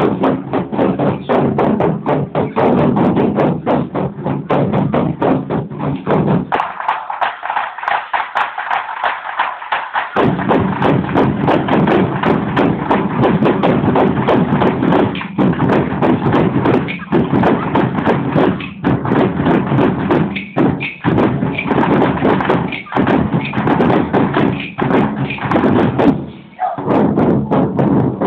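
Ensemble of about two dozen large Thai war drums (klong suek) beaten together in a fast, dense, continuous rhythm. The deep drum sound stops for about three seconds some seven seconds in, then comes back.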